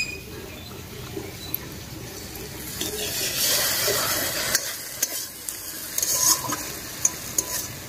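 Soaked semolina batter being worked by hand in a plastic bowl, then poured into a steel wok of fried shredded potato with a wet rushing sound about three seconds in. A few sharp clicks of a steel spatula against the wok follow near the end.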